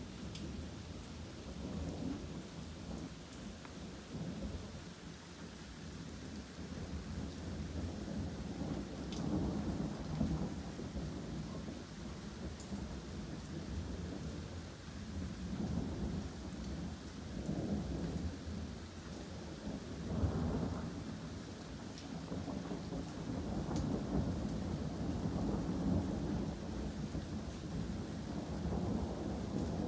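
Continuous rolling thunder over steady rain falling on trees, the rumble swelling and fading several times, with its loudest swell about two-thirds of the way through.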